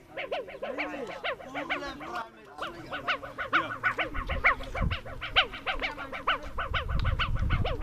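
A flock of birds calling, with many short, rapid calls overlapping throughout. A low rumble comes in around the middle and again near the end.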